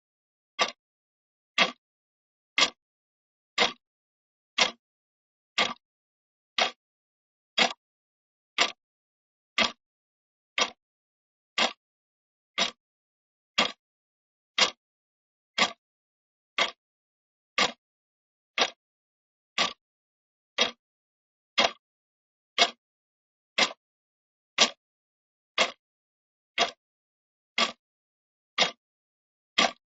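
Clock ticking steadily at one tick a second, each tick a short sharp click with silence between.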